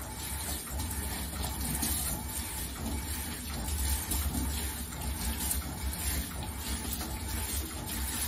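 Kitchen tap running steadily into a stainless steel sink while dishes are rinsed under the stream.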